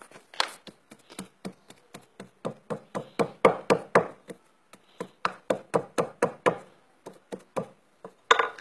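A pestle pounding animal fat in a small mortar-like pot, mashing it with oil into oar grease. Quick, even knocks, about three or four strokes a second, with a short pause about halfway through.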